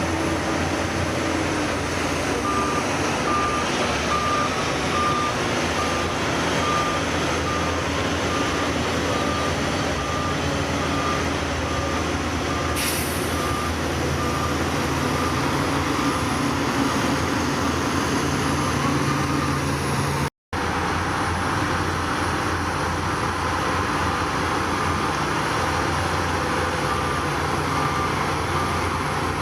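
Heavy diesel machinery running steadily while a reversing alarm beeps in an even, repeating pattern. A short hiss of air sounds about halfway through, and the sound drops out for a moment about two-thirds of the way in.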